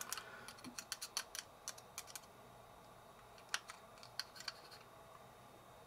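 Faint small clicks and taps from handling a Daiwa Steez SV TWS baitcasting reel during reassembly: a quick flurry over the first two seconds, then a few scattered clicks.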